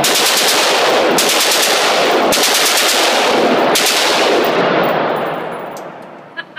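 FN SCAR 16 rifle (5.56 mm) firing three full-auto bursts of rapid shots, the first about a second long and the next two shorter. The shots echo heavily in an indoor range, and the echo dies away about five seconds in.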